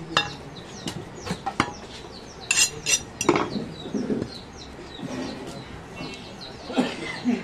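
A handful of sharp cleaver strikes on a wooden chopping block in the first three and a half seconds. Birds chirp throughout.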